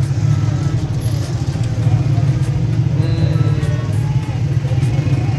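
Motor rickshaw's engine running steadily under way, a low rapid flutter, with passing motorcycles and the voices of a crowded street around it.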